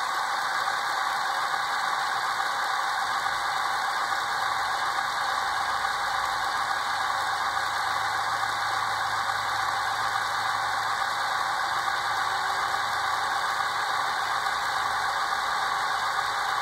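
Diesel prime mover sound from the onboard sound system of an HO scale Broadway Limited Paragon 4 GE ES44AC model locomotive, running steadily through its small built-in speaker.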